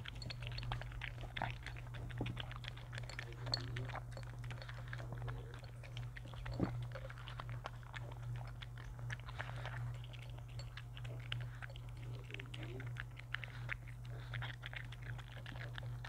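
Shih Tzu crunching dry kibble from its bowl: a steady run of small crunches and clicks, one sharper than the rest about six and a half seconds in, over a steady low hum.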